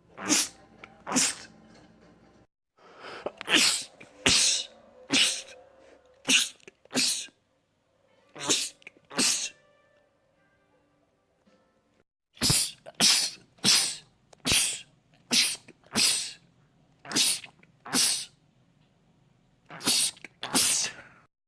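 A man sneezing over and over, about twenty sharp sneezes, mostly in quick pairs, with a pause of a couple of seconds about halfway through.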